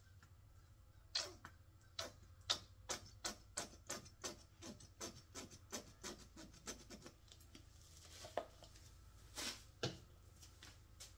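Plastic squeeze bottle of acrylic paint being squeezed in quick pulses over a canvas, its sides clicking and paint spluttering out about three times a second. Near the end come a couple of louder knocks, like a bottle being handled or set down.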